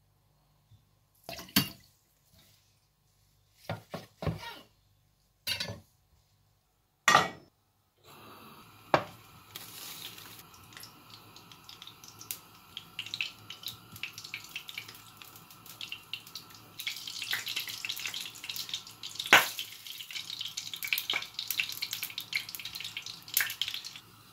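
A sushi roll being coated by hand in starch and panko breadcrumbs against glass and ceramic plates: a few separate pats and scrapes, then from about eight seconds in a steady hiss thick with crackling and sharp clicks.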